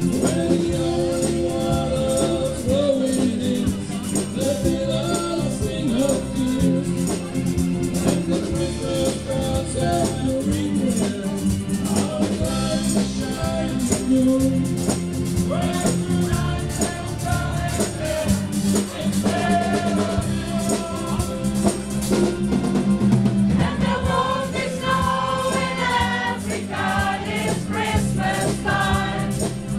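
Choir singing a song with hand percussion keeping a steady beat.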